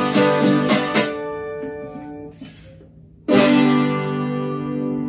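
Viola caipira, the Brazilian ten-string guitar, played with quick plucked notes in the first second that are left to ring and fade. After a brief lull about three seconds in, one loud chord is struck and rings out, slowly fading.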